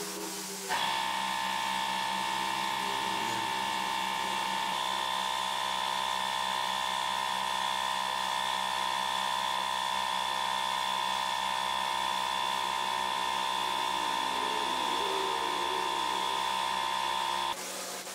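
Compressed-air spray-finishing setup running: a steady high-pitched whine with a lower hum starts abruptly about a second in and cuts off abruptly near the end.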